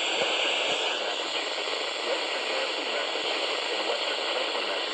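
Steady radio static hiss from a radio receiver with no voice on the channel. It eases slightly in its upper part about a second in.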